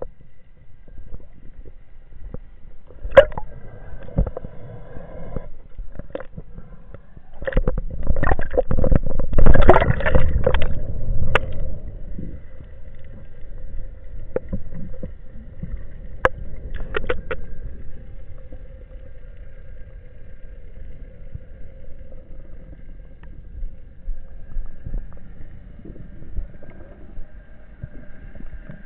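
Underwater sound picked up by an action camera in its housing on a wooden speargun: water gurgling and rushing past, with scattered knocks and clicks from the gun being handled, loudest for a few seconds about a third of the way in. A faint steady hum runs underneath.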